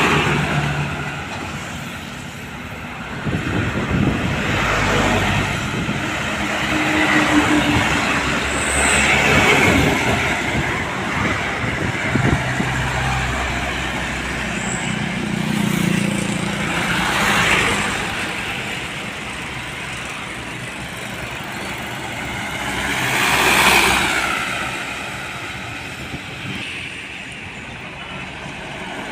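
Highway traffic passing close by: trucks and other vehicles going past one after another, each pass of engine and tyre noise swelling and fading, the loudest about a quarter of the way in, in the middle and near the end.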